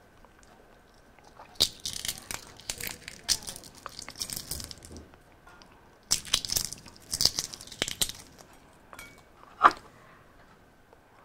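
Balut duck eggshell crackling as it is cracked and peeled off by hand, in two spells of crisp snaps, followed by a single sharp click near the end.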